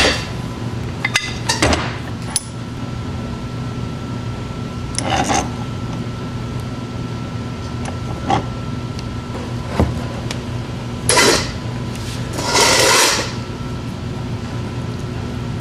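Workbench handling sounds as copper lugs and power wire are worked in a bench vise: scattered clinks and knocks and a few short rustling bursts of noise, over a steady hum.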